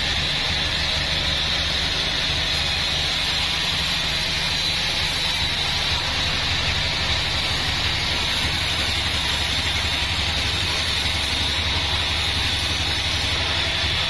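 A Bandsaw36 band sawmill running and sawing a mahogany log. Its steady low motor hum sits under a continuous higher-pitched blade hiss that does not change.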